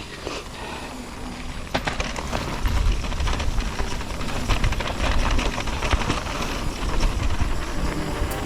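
Orbea Rise e-mountain bike riding down a dirt trail: tyres rolling over ground and roots, with scattered clicks and knocks from the bike. A low wind rumble on the helmet-camera microphone grows from about a third of the way in as the speed builds.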